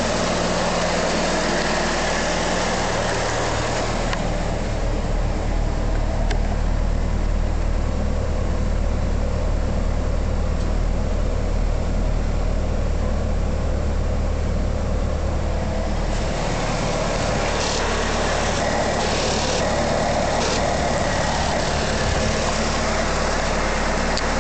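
Fuel-injected Pontiac 151 cu in (2.5-litre) Iron Duke four-cylinder idling steadily, with no revving. From about four seconds in to about sixteen seconds in it is heard from inside the car's cabin, where it sounds more muffled.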